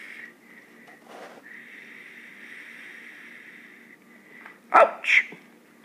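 Puppy giving two short, sharp barks in quick succession near the end.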